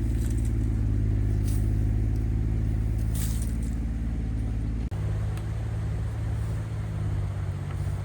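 Engine running steadily, its note changing abruptly to a lower, different pattern about five seconds in.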